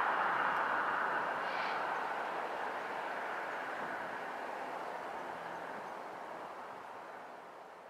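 A train running away along the line, its wheel-on-rail noise fading steadily.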